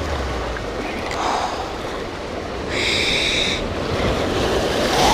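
Sea surf washing against shoreline rocks, with wind on the microphone. A brief, higher-pitched buzz stands out about three seconds in.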